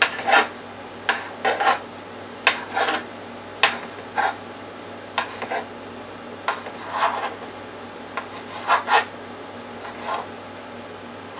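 Chef's knife cutting raw haddock fillet into chunks on a cutting board: irregular knocks of the blade hitting the board, some with a short scrape, about one every half second to a second.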